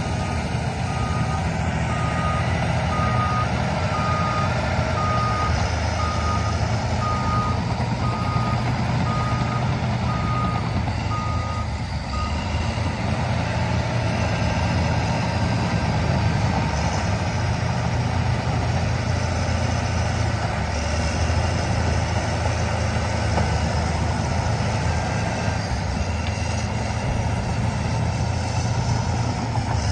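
Heavy construction machine's reversing alarm beeping at an even pace over its running diesel engine; the beeping stops about twelve seconds in while the engine keeps running.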